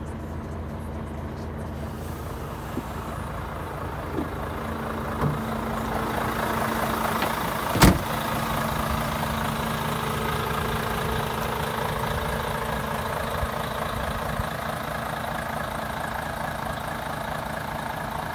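A Volvo FH500 13-litre straight-six diesel idling steadily, with a few light knocks and one loud thud just under eight seconds in as the cab door is shut.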